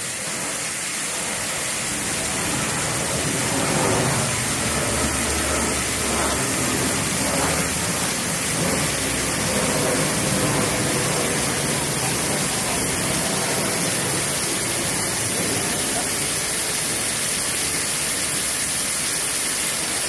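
Waterfall: water falling in many streams and drips down a mossy rock face and splashing into a pool, a steady rush of water.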